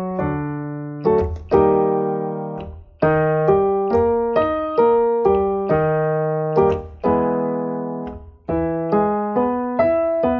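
Electronic keyboard in a piano voice playing a singing warm-up accompaniment: single notes stepping up and down about twice a second, broken by longer held chords, the pattern moving to a new key each pass.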